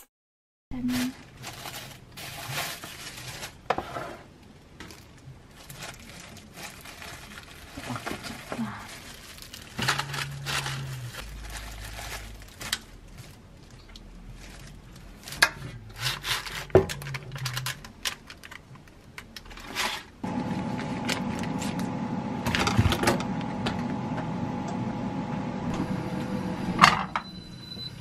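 Light clicks and knocks of food and kitchenware being handled with a plastic-gloved hand. About two-thirds in, an electric air fryer starts running with a steady fan hum, which stops abruptly near the end.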